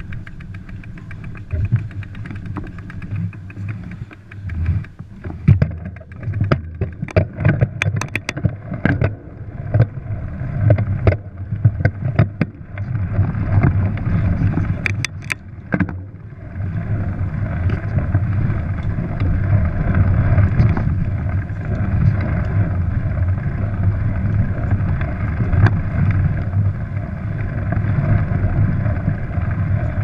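Mountain bike on a rough dirt trail, heard through a camera mounted on the bike or rider: a low rumble with rattles, clicks and knocks, turning into a steadier rumble of riding about halfway through.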